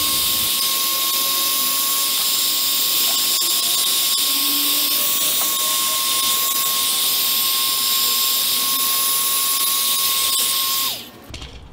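Heat gun running steadily: a constant rush of hot air with a steady high-pitched motor whine, shrinking dual-wall heat shrink tubing onto a copper battery-cable lug. Near the end it is switched off and the whine drops away.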